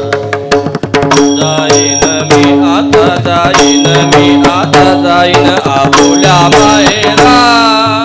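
Devotional abhang music: fast hand-drum strokes with a pitched melodic line and a steady held drone.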